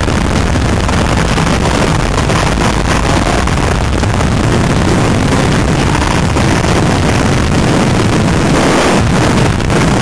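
Sport motorcycle running at speed on track, its engine buried under heavy wind rushing over the onboard microphone.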